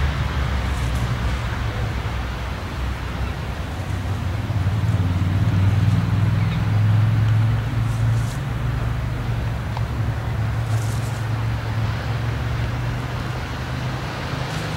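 Steady low rumble of road traffic, swelling about halfway through as a vehicle passes close by and then easing off again.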